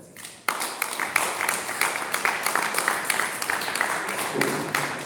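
Audience applauding, breaking out suddenly about half a second in as a dense run of hand claps.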